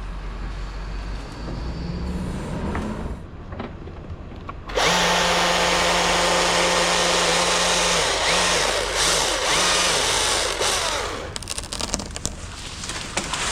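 Two-stroke chainsaw run up to full throttle about five seconds in and held steady for a few seconds, then blipped three times before it drops back off the throttle.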